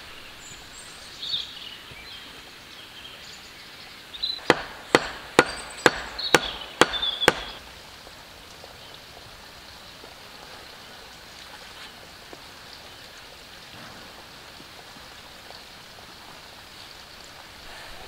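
Seven quick, sharp blows on wood, about two a second, starting about four and a half seconds in, with a few short high chirps around them.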